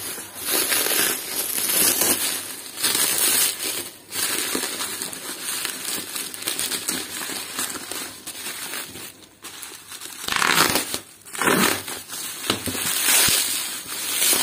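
Bubble wrap crinkling and rustling as it is pulled open by hand, in uneven handfuls, with a short lull about nine seconds in.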